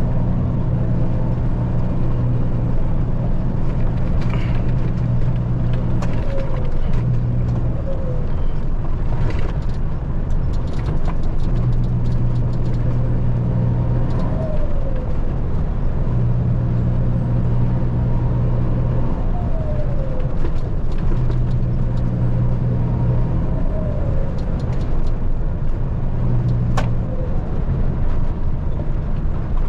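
A truck's engine running, heard from inside the cab: a steady low drone that grows and eases in strength every few seconds, with a few faint clicks and rattles.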